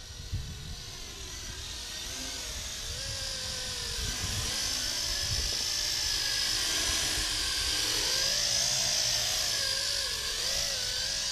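WLtoys V666 quadcopter's motors and propellers whining as it flies in close and hovers. The whine grows louder over the first few seconds, then holds, its pitch wavering up and down with the throttle.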